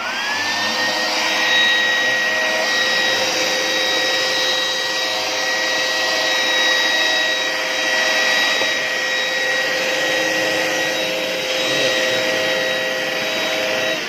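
Mains-powered (AC, not battery) handheld vacuum cleaner switched on: its motor spins up with a rising whine in the first second, then runs at a steady high whine over a rush of air.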